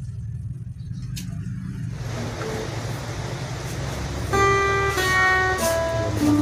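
A low steady hum, then acoustic guitar background music coming in about four seconds in, with single plucked notes ringing over the hum.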